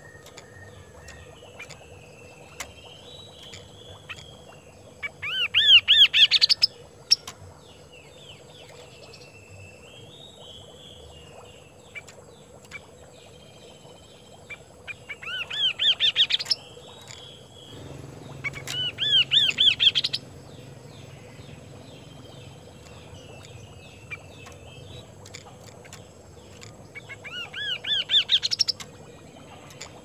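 Chestnut-capped babbler (kaso-kaso) singing in four loud bursts, each a rapid run of repeated ringing, upward-sweeping notes lasting about a second and a half. Fainter warbling and chattering fills the gaps.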